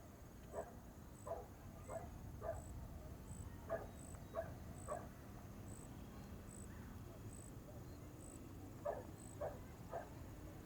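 A dog barking in three short runs of three or four barks, about two-thirds of a second apart. Behind it a faint high chirp repeats steadily over a low outdoor rumble.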